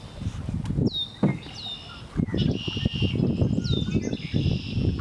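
Marsh birds calling: a short high whistled note sliding down, heard about four times, with buzzy trills between, over an uneven low rumble.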